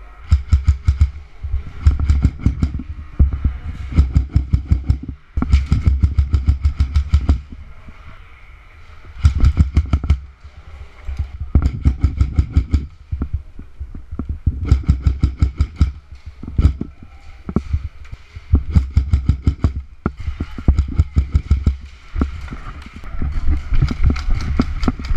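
Airsoft electric rifle firing repeated full-auto bursts, each a second or two long, with short pauses between them.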